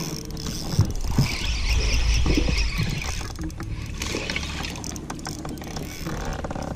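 Wind buffeting the microphone in an uneven rumble, over the clicks of a fishing reel being cranked while a hooked bass is fought in and splashes at the surface.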